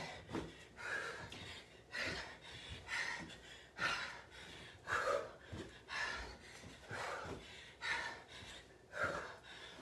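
A woman breathing hard through a cardio interval of side hops, one forceful exhale about every second, with faint soft thuds of her feet landing on a carpeted floor.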